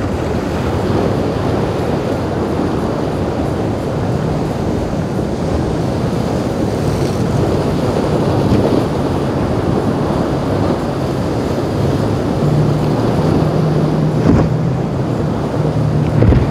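Outboard-powered center-console boat running through choppy inlet water: a steady wash of waves and wind on the microphone, with the engines' low hum coming up in the last few seconds.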